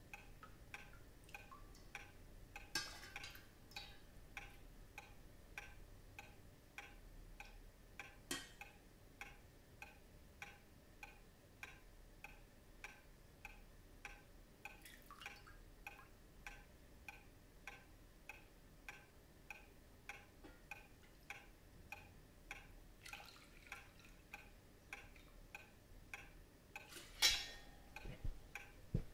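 Even, quiet ticking, a few ticks a second, all through. Now and then comes the clink and splash of a metal ladle serving soup from a steel pot into bowls, with the loudest clink near the end.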